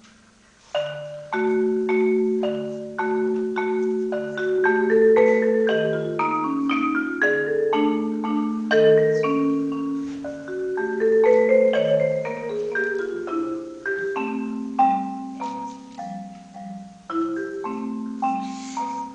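Solo Yamaha marimba played with mallets, starting again after a brief pause about a second in. A flowing passage of held low notes runs under quicker higher notes.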